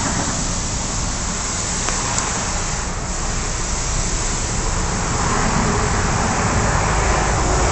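Steady rushing noise of road traffic going by outdoors, growing louder near the end.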